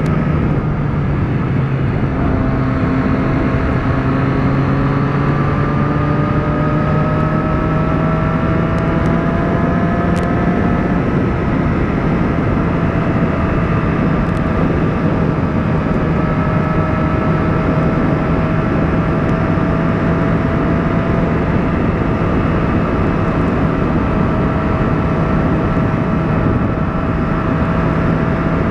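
Motorcycle engine running at highway speed with heavy wind and road noise. The engine note rises slowly for several seconds, then holds steady.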